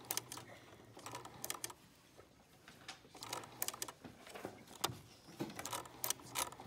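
Sewing machine stitching slowly through paper at a short stitch length and half speed, in short runs with pauses as the curve is steered. Its motor hums faintly and the needle clicks irregularly.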